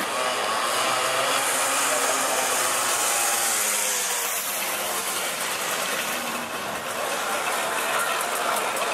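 Small two-stroke moped engines running as several vintage mopeds ride past, their pitch wavering up and down.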